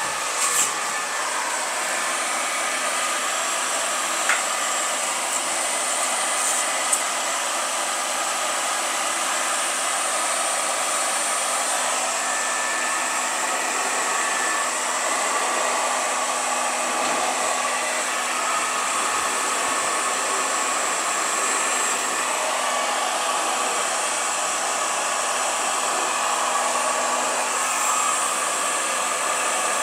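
Handheld electric heat gun switched on at the start and running steadily, its fan blowing hot air onto heat-shrink tubing over a crimped cable lug.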